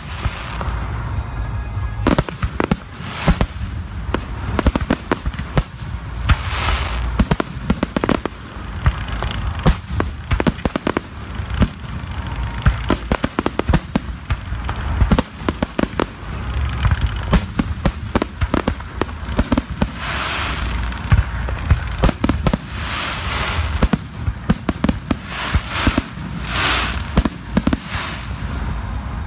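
Fireworks display: aerial shells bursting in a dense, irregular run of sharp bangs, with several longer stretches of hiss among them.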